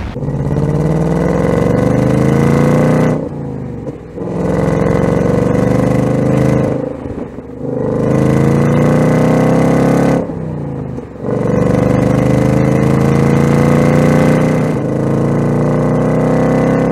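Ford Mustang Dark Horse's 5.0-litre Coyote V8 accelerating hard. The note rises steadily in four long pulls, with short drops in level about three, seven and ten seconds in.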